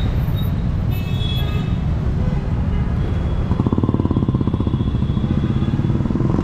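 Busy road traffic with motorcycles and scooters running. From about three and a half seconds in, a nearby motorcycle engine with a fast, even beat becomes the loudest sound.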